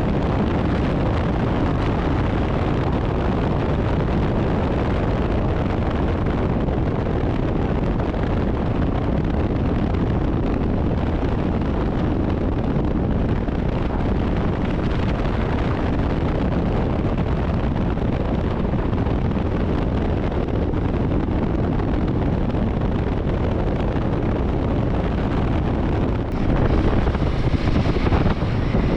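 Wind rushing over the microphone of a moving Royal Enfield Himalayan 450 motorcycle, with the bike's running mixed in underneath. The sound is a steady rush that gets a little louder about two seconds before the end.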